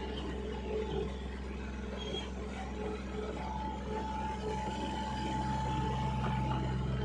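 A vehicle engine running steadily while travelling, with a thin whine joining about three and a half seconds in and the low hum growing slightly stronger near the end.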